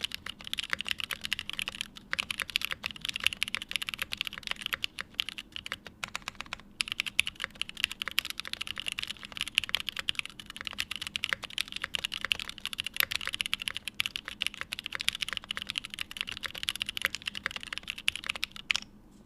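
Continuous typing on a Day Off 60 mechanical keyboard with an aluminium plate, lubed and filmed Hyperglide linear switches with Kailh stems and GMK Modo keycaps: a rapid stream of keystrokes with a few brief pauses, stopping suddenly near the end.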